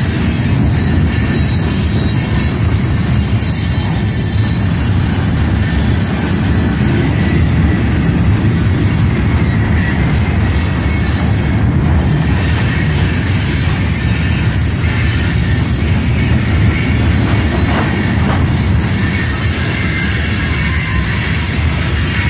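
Kansas City Southern freight train's gondola cars rolling past: a loud, steady rumble of steel wheels on the rails.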